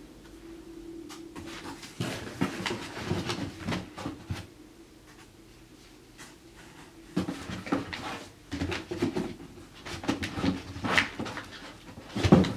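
Handling noise from a cardboard box of produce: rustling, scraping and bumping as the box is rummaged and a bunch of bananas is lifted out. The noise comes in irregular spells, with a louder knock near the end.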